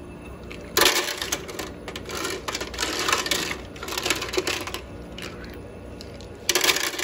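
Small ice cubes clattering and rattling against a plastic ice scoop and the plastic basket of a countertop ice maker as they are scooped out. The rattling starts suddenly about a second in, goes on in bursts for a few seconds, and comes back once near the end.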